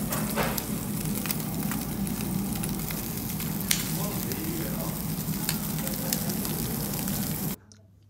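Thick slabs of pork belly sizzling on a grate over live charcoal, a steady frying hiss scattered with sharp pops and crackles of spitting fat. It cuts off suddenly near the end.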